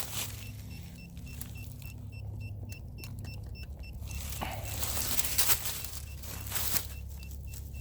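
Metal detector beeping in quick regular pulses, about four short high beeps a second, stopping about halfway and starting again near the end, with scraping and rustling in the pause, over a steady low hum.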